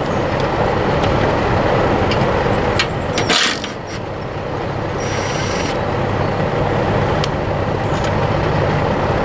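Cordless impact driver on the bearing-holder nuts of a hay rake: two short bursts of the tool about three and five seconds in, the second with a high whine. A few light metal clicks are heard over a steady low rumble.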